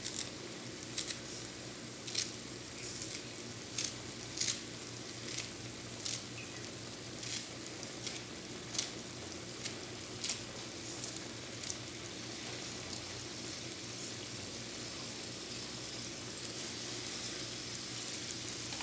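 Thick chicken korma gravy cooking in a pan on a gas stove, sizzling steadily with scattered small pops, most of them in the first dozen seconds.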